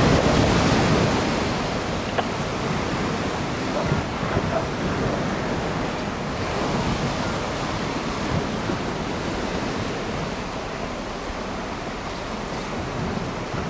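Steady rushing of wind on the microphone and choppy river water, a little louder in the first couple of seconds.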